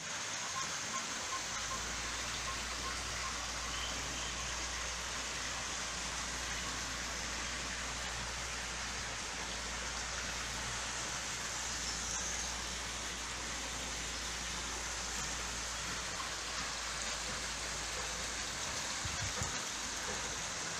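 Steady rush of splashing water from the swimming pool's water jet, with a low steady hum beneath. A few soft knocks near the end.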